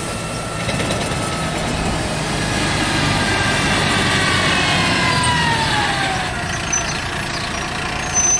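MAN city bus driving past and pulling away, its engine running with a whine that falls in pitch as it goes by. A brief sharp sound near the end.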